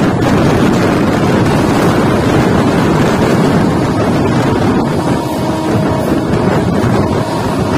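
Steady rush of wind and wheel-on-rail noise from an LHB passenger coach running at speed, with wind buffeting the microphone at an open door or window.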